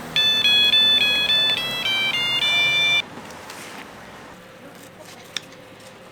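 A short electronic jingle: a quick run of pure beeping notes that steps up and down and ends on a held note, lasting about three seconds, then cuts off.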